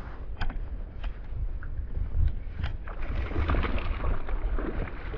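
A hooked fish thrashing and splashing at the water's surface beside a boat, with a few short sharp clicks early on and heavier splashing in the last couple of seconds, over a steady low rumble.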